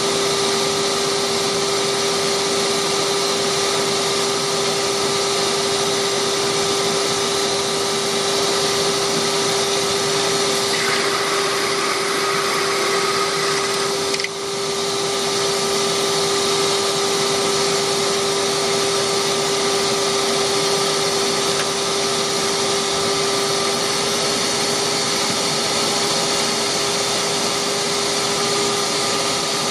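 Delta wood lathe running steadily with a constant motor hum. Its sound changes for about three seconds near the middle, then dips briefly.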